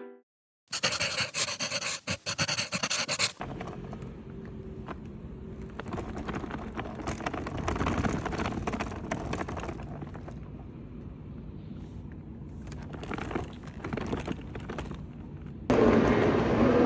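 Hard-shell suitcase wheels rolling over rough asphalt: a continuous gritty rumble and scrape with irregular clatter, louder and harsher for the first few seconds. Near the end it cuts to louder, steady train-station platform noise with a low hum.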